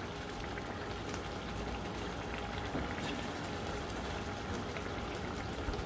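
Thick masala egg curry bubbling and sizzling steadily in a pan as it is stirred with a metal spoon, being cooked down until dry.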